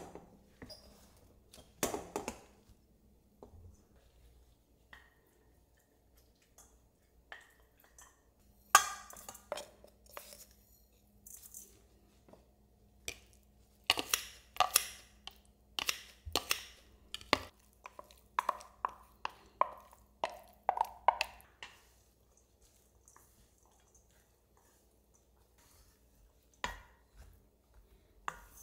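Wooden spoon and wooden rice paddle knocking and scraping against a stainless steel mixing bowl as rice is mixed: scattered sharp knocks, a quick run of them in the middle, then a lull and one more knock near the end.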